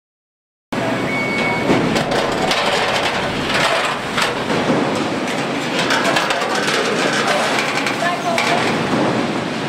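Car-body stamping line running: steady machinery noise with frequent clanks and rattles of stamped sheet-steel panels on conveyor belts, starting abruptly under a second in.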